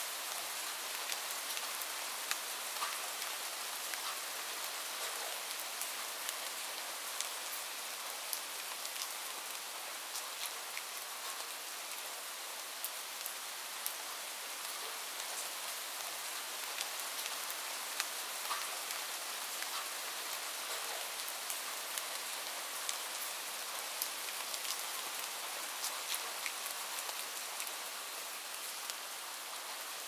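Light rain falling: a steady hiss with scattered sharp taps of single drops.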